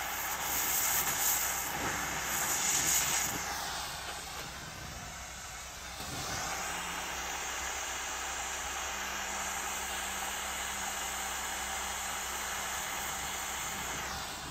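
Gas torch flame hissing steadily as it heats a bicycle frame joint for brazing with a filler rod. The hiss drops for a couple of seconds about four seconds in, then holds steady again.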